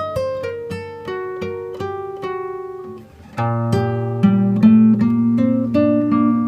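Background music of fingerpicked acoustic guitar: single plucked notes in a run, a short pause about three seconds in, then a fuller passage with held low notes under the melody.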